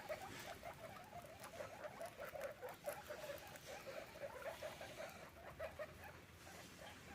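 Guinea pig making a rapid, unbroken run of short low squeaks, several a second.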